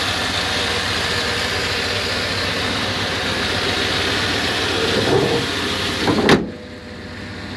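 1989 Chevrolet C2500 pickup's engine idling steadily, with a steady hiss over it. A sharp knock comes about six seconds in, and after it the sound drops to a much quieter background.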